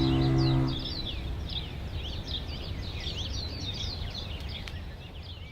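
Many birds chirping in quick, high, falling chirps over a low steady rumble, all fading out near the end. The held note of background music stops about a second in.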